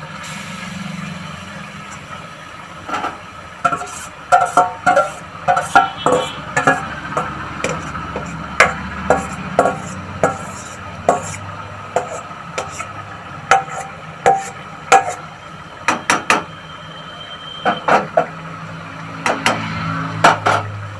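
Fried potatoes being scraped from a steel bowl into a kadai of curry gravy: irregular metallic clinks and knocks of the bowl and utensil against the pan, over a faint steady hum.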